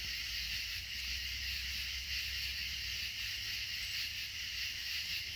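A steady, unbroken chorus of night insects in high, shrill bands, with a low hum underneath.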